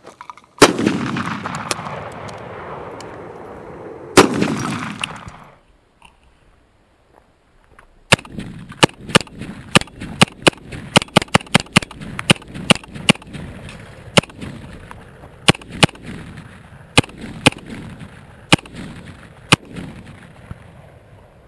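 AR-15 pistol firing Russian steel-cased ammunition. Two single shots about three and a half seconds apart, each followed by a long echo. After a short quiet gap comes a string of around thirty shots, quick at first and slower toward the end, heard close up from a camera mounted on the gun.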